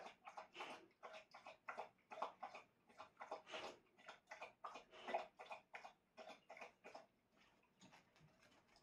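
A dog with its muzzle down in a floor bowl makes quick, regular mouth noises, about three a second. The noises stop about seven seconds in.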